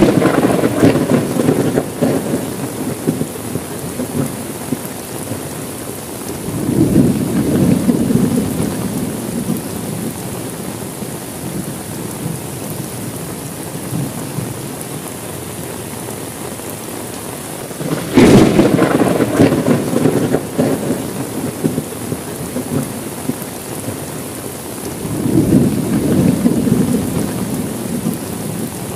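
Steady rain with repeated thunder. There is a sharp clap right at the start and another a little past the middle, each followed by rumbling, and lower rolling rumbles swell and fade about seven seconds in and again near the end.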